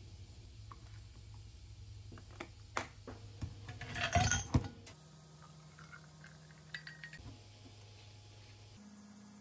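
A footed drinking glass clinking on a stainless-steel kitchen counter while milk is poured into it from a carton. The loudest clinks and splashing come about four seconds in, with fainter pouring and clinks after.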